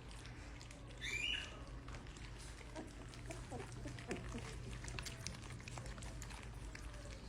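Three-week-old goldendoodle puppies eating moistened, puréed puppy mush: many small wet lapping and smacking clicks. A short high puppy squeal comes about a second in, and small grunts follow around the middle.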